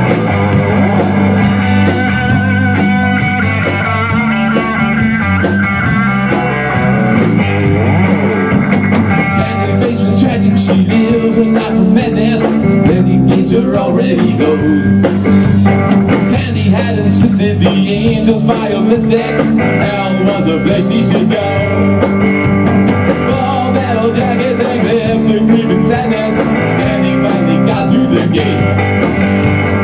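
Rock band playing live: distorted electric guitars over a Tama drum kit, loud and continuous.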